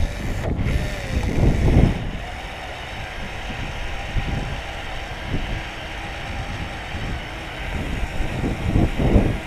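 Wind buffeting the microphone: a gusting rumble that swells about a second and a half in and again near the end.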